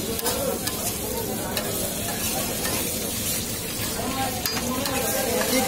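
Metal spatula scraping and knocking across a large flat metal griddle (tawa) while chicken pieces fry on it with onion and chilli, the oil sizzling steadily under irregular scrapes and clicks.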